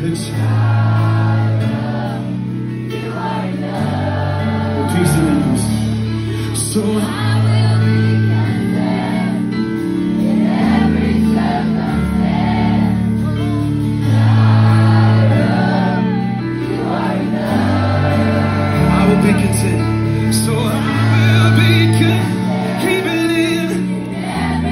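Loud music with singing over a deep bass line whose notes change every second or two.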